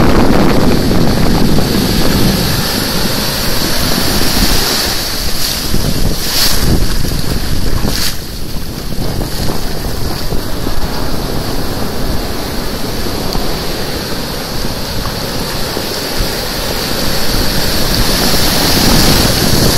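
Ocean surf breaking and washing in around the shallows, a loud rushing wash that eases in the middle and swells again near the end, with wind buffeting the microphone.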